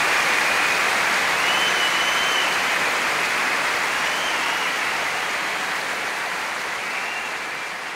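A crowd applauding, the clapping fading out gradually.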